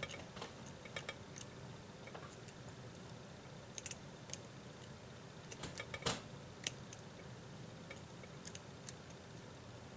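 Faint, irregular small metallic clicks and light scrapes of a hook pick and titanium tension wrench working the pins of a pin-tumbler lock, with the sharpest click about six seconds in.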